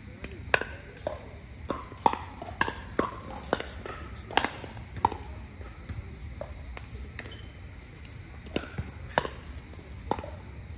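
Pickleball paddles striking hard plastic balls: an irregular series of sharp hollow pops, some with a short ringing tone, from rallies on several courts at once.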